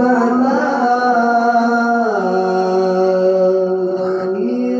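A male qari reciting the Qur'an in melodic tilawah style into a microphone, holding one long drawn-out note that steps down in pitch about two seconds in and rises again near the end.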